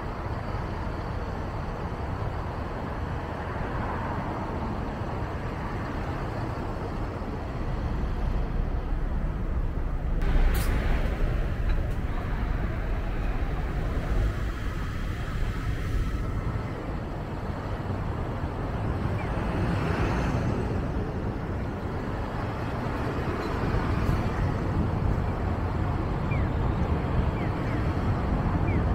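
Road and traffic noise of a car driving through city streets: a steady low rumble of tyres and engine that swells louder a few times, with one sharp click about ten seconds in.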